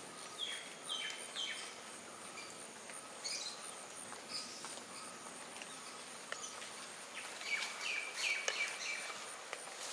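Birds calling in short chirps, three quick notes near the start and a longer run of notes near the end, over a steady high insect whine and the soft hiss of a wet plantation after rain, with scattered light ticks.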